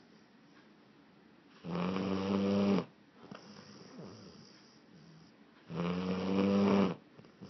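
Blue Lacy dog snoring loudly: two rattling snores about four seconds apart, each lasting about a second.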